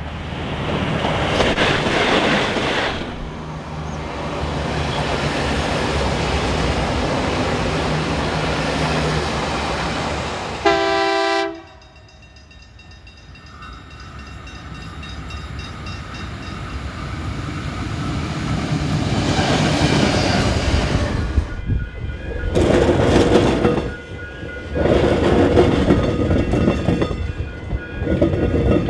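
A string of Australian trains passing one after another, cut abruptly from one to the next: diesel locomotives and railcars running with wheels rumbling on the rails, and a short train horn blast about a third of the way through. A QR National freight led by an EMD GT46ACe (LDP class) then approaches and grows louder. Near the end, a Metro three-car Xtrapolis electric set is pounding through a tramway crossover with a loud clatter.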